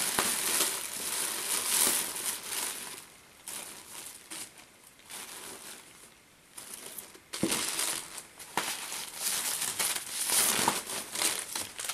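Clear plastic zip-lock bags crinkling and rustling as they are handled and shifted about in a bin, busy at first, dying down for a few seconds in the middle, then picking up again after a single sharp tap.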